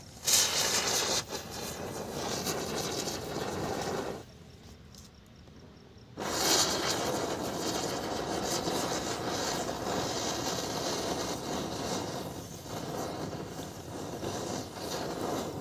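Chakri ground-spinner firework burning with a loud, fizzing hiss as it sprays sparks. The hiss starts suddenly, drops away for about two seconds, then starts up again and runs on steadily.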